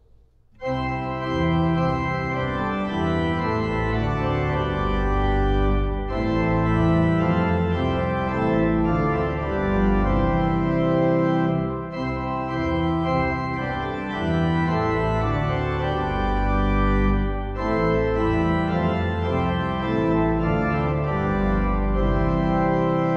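Pipe organ playing sustained chords on the great's full principal chorus (8-foot principal, 4-foot octave, 2-foot fifteenth and a five-rank fourniture mixture), with a little pedal adding deep bass notes. The playing starts about a second in, with three short breaks between phrases.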